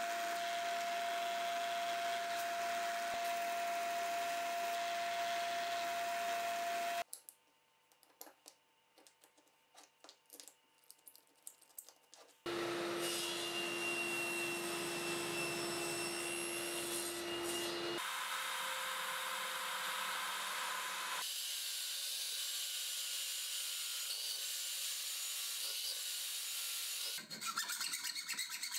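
Stationary belt sander running with a steady whine while a small HPL piece is shaped against the belt, then a few seconds of near quiet with light handling clicks. A table saw then runs for several seconds as small pieces are cut on a sled, and near the end a hacksaw makes quick strokes through a steel rod.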